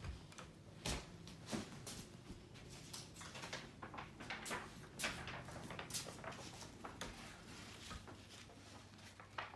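Scattered light knocks, taps and rustles of objects being handled, at irregular intervals, with a sharper knock about a second in and several near the middle.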